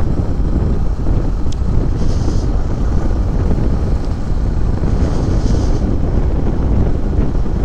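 Wind buffeting the microphone over the steady running of a Yamaha MT-15's single-cylinder engine, cruising in sixth gear at about 48 km/h.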